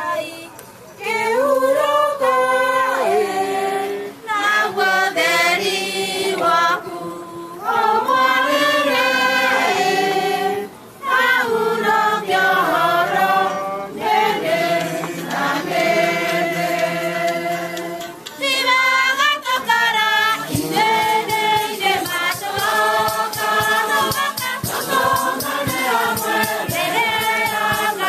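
A choir singing a hymn in several voices, in long phrases with short breaks. About two-thirds of the way through, a steady rhythmic beat joins the singing.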